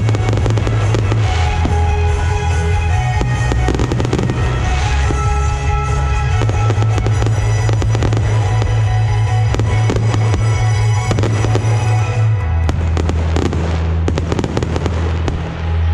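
Fireworks shells bursting and crackling over loud music with a heavy, steady bass line. The bangs and crackles come thickest near the end.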